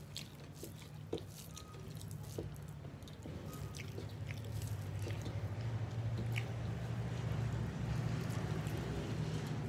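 Eating rice and curry by hand: soft wet squishes of fingers mixing rice on steel plates, scattered small clicks and chewing. A steady low hum sits underneath and grows louder in the second half.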